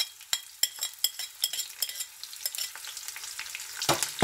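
A spatula tapping and scraping chopped onions off a plate into a frying pan of hot oil, a run of quick taps, then the onions sizzling in the oil, with a louder scrape of the spatula against the pan near the end.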